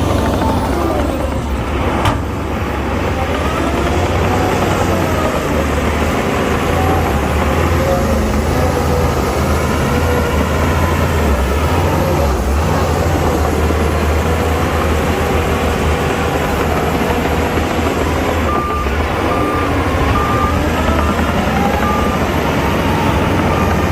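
Heavy diesel earthmoving machinery running steadily, with a single sharp knock about two seconds in. Near the end a reversing alarm beeps at an even pace.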